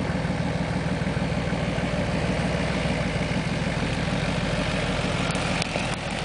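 Ford Maverick 4x4's engine running steadily at low revs as the vehicle crawls through soft sand, with a couple of faint clicks near the end.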